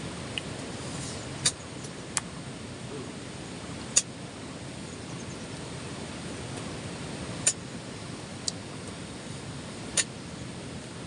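Steady rush of river water, with about six sharp clicks or knocks scattered through it.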